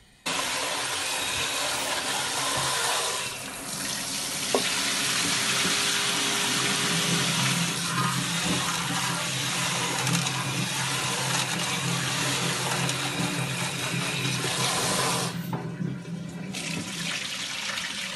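Kitchen tap running hard into an aluminium pot in a stainless steel sink while split lentils are rinsed by hand, the water splashing and swirling. The flow starts suddenly and eases briefly twice.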